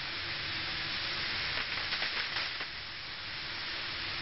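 Raw ground-turkey burger patties sizzling in a little hot olive oil on a stovetop grill pan, a steady hiss with a few louder crackles about two seconds in.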